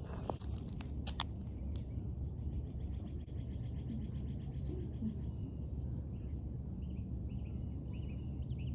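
Backyard ambience with a steady low rumble, a bird's rapid trill for a few seconds, then short bird chirps near the end. A few sharp clicks about a second in.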